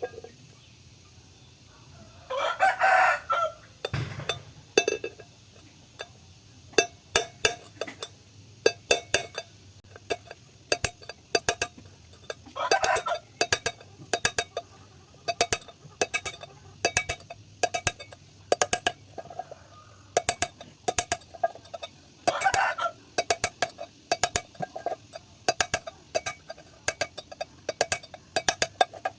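Sharp metallic clicks and taps, coming in quick runs, from a tin can being cut and worked with hand tools to make a strainer. A rooster crows three times in the background, about ten seconds apart.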